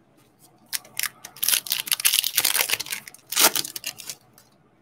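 Plastic wrapper of a Donruss football card pack being torn open and crinkled by hand, in crackly bursts, loudest in the middle and again about three and a half seconds in.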